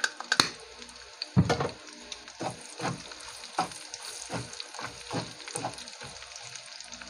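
Minced garlic sizzling as it is tipped into hot rendered pork fat in a wok and stirred with a wooden spatula, the spatula scraping the pan in repeated strokes.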